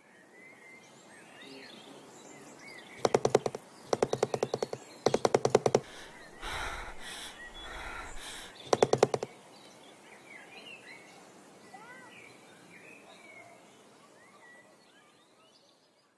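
Birds chirping in the background, with four loud bursts of a fast rattling sound effect, roughly ten pulses a second, between about three and nine seconds in.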